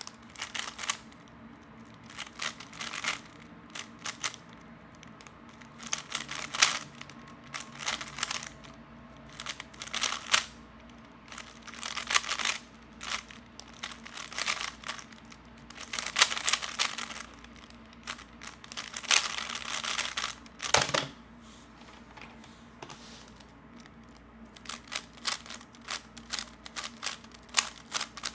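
3x3 Rubik's cube being turned fast: bursts of rapid plastic clicking and clacking with short pauses between them, and a single sharper knock about three quarters of the way through.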